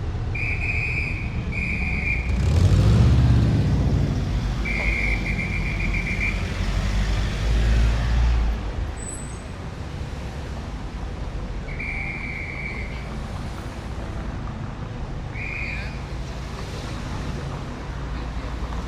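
Street traffic going by, with vehicles passing loudest about three and eight seconds in. Over it come five short, high whistle blasts, two near the start, a longer trilled one about five seconds in, and two more later.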